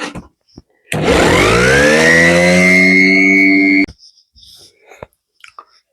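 Electric power tool motor spinning up with a quickly rising whine, running at a steady high pitch for about three seconds, then stopping abruptly.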